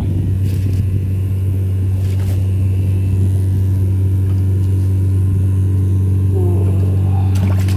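A small engine running steadily at a constant speed, a loud low hum that does not change pitch.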